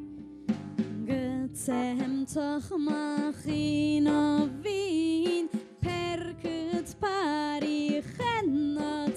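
A woman singing a song with a live band backing her; the voice comes in about a second in over the playing instruments.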